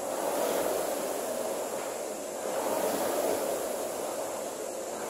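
Rowing machine's fan flywheel whooshing with each stroke, swelling and easing about every two and a half seconds.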